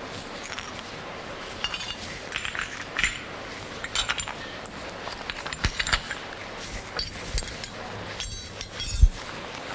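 Scattered clinks and light knocks of tableware (glasses, plates and cutlery) over a low steady background, with one louder knock near the end.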